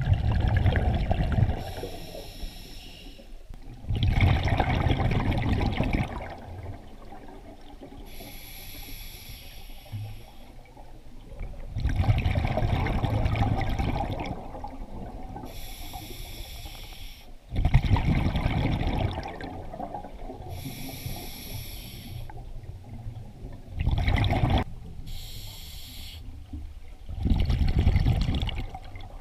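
Scuba diver breathing underwater through a regulator: a hissing inhale alternating with a loud bubbling exhale, repeated over several breaths.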